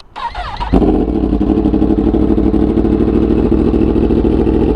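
Sport motorcycle engine running steadily and loudly, cutting in under a second in after a brief gliding sound.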